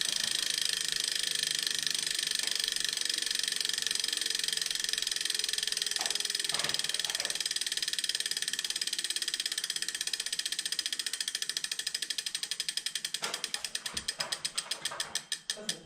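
Grinding noise from the Neo's mechanism: a very fast, even, ratchet-like clicking that slows into separate clicks over the last few seconds as the mechanism winds down, with a few knocks near the end.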